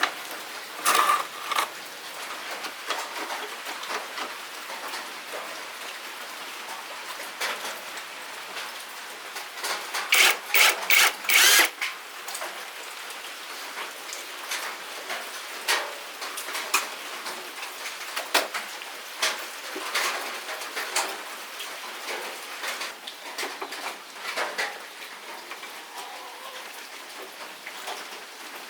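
Hand work on parts, heard as an irregular scratching and rubbing with scattered clicks and taps; a quick run of about five sharp knocks comes around ten to twelve seconds in.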